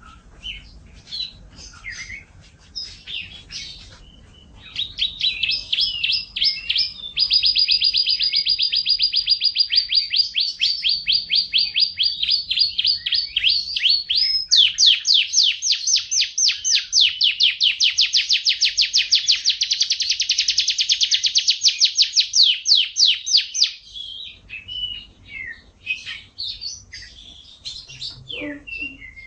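Canary singing: scattered chirps and short phrases, then two long, fast trills of evenly repeated notes lasting several seconds each, the second spread lower and wider in pitch. About 24 seconds in it breaks back into short, varied notes.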